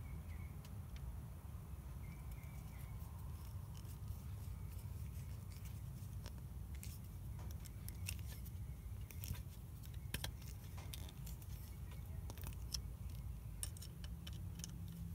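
Sheet metal screw being turned by hand with a nut driver into the metal ring of a crankshaft oil seal, giving faint scattered clicks and scrapes, more of them in the second half, over a low steady hum.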